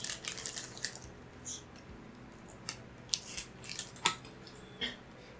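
Plastic snack packaging handled at a table: scattered short crackles and clicks as the bags are picked up and opened.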